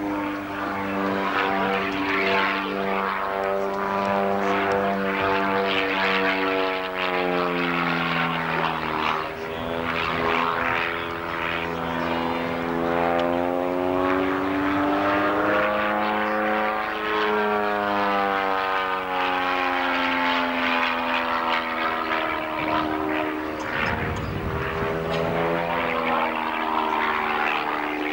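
Single-engine propeller aerobatic plane flying a display overhead, its engine droning with a note that rises and falls several times as it climbs, dives and turns.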